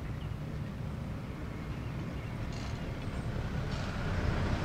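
Steady low rumble of harbour background noise with a light hiss, growing a little louder near the end.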